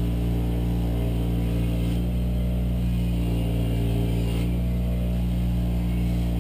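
Delta bench grinder running at steady speed, its motor giving an even hum, with a piece held against the spinning buffing wheel.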